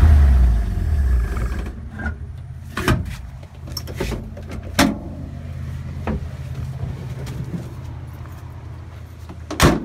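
1956 Willys jeep engine running, loud for the first second or so, then settling to a steady low idle. Several sharp clicks and knocks sound over it, the loudest just before the end.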